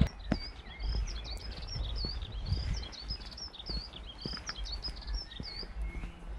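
A songbird singing a long run of quick, varied whistled notes that stops near the end, over a low rumble with a few soft thumps.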